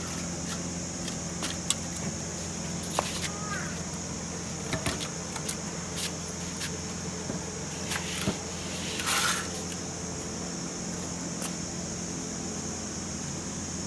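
Scattered metallic clicks, knocks and a short scrape of parts and tools being handled as an old four-stroke generator is taken apart, over a steady background hum.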